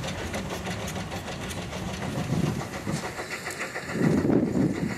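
Narrow-gauge steam locomotive and coaches passing close, wheels clicking quickly and evenly over the rail joints with steam puffing. Louder low rushes come about four seconds in.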